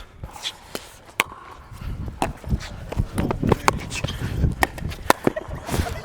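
A pickleball rally: sharp, irregular pops of paddles striking the plastic ball, coming thicker after about two seconds, with footsteps and movement rumble picked up by a body-worn mic.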